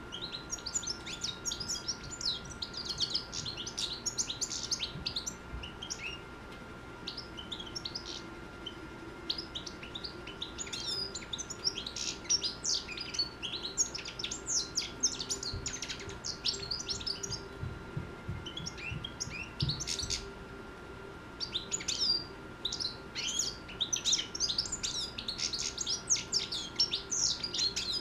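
A six-month-old European goldfinch singing: runs of rapid, high twittering notes, broken by short pauses about a quarter of the way in and again about three-quarters of the way through.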